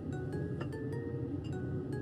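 Background music: a soft melody of separate piano notes over a low, full accompaniment.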